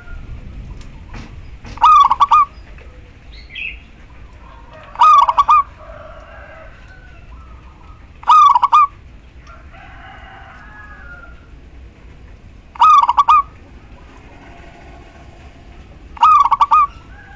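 Female zebra dove calling: a short, rolling coo repeated five times, every three to four seconds. Fainter bird calls sound between them.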